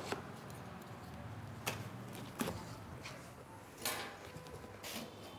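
Packing tape and plastic film being picked at and torn off a cardboard box, making a handful of short sharp crackles and rips spread over a few seconds, with the cardboard flaps being pulled open near the end.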